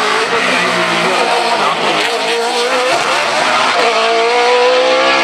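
Mercedes 190 hillclimb car's Judd V8 race engine accelerating hard. Its pitch climbs through the gears and drops back twice at the upshifts.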